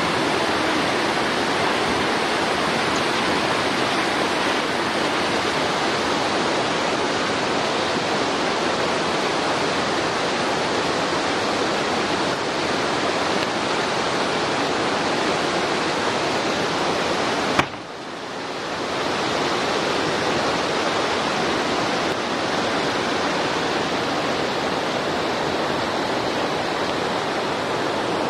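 Steady rushing noise of running water. A sharp click comes about two-thirds of the way through, after which the noise drops and swells back over a couple of seconds.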